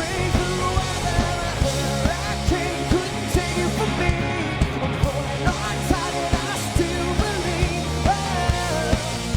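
Rock band playing live with electric guitars over a steady drum beat, in an instrumental stretch of the song with no lyrics sung.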